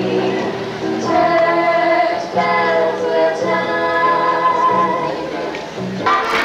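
Music: several women's voices singing together in harmony over instrumental backing with a moving bass line. Near the end it cuts abruptly to different music.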